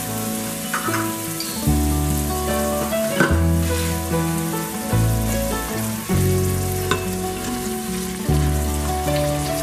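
Background music with held chords and a slow bass line that changes every second or so, over sliced onion sizzling in hot oil in an Instant Pot's stainless-steel inner pot. Near the end a silicone spatula stirs the onions.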